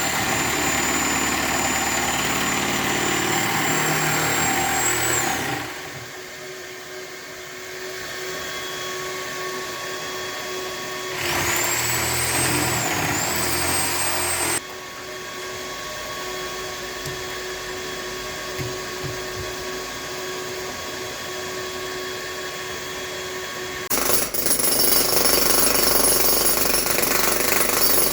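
Construction machinery in a basement dig: a machine with a high steady whine, then a quieter steady motor. Near the end a jackhammer starts breaking the concrete floor.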